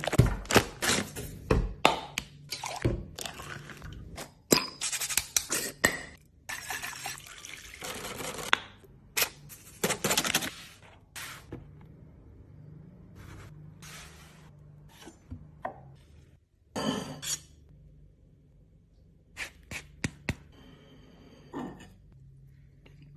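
Kitchen prep sounds: utensils knocking and clinking against bowls and pans, with several longer stretches of noise in the first half, then only a few scattered knocks.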